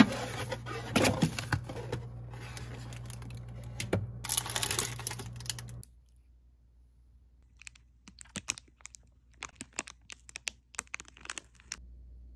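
Rustling and clatter over a steady low hum, cut off suddenly about halfway through. After that come a few seconds of scattered light clicks in irregular clusters, like typing.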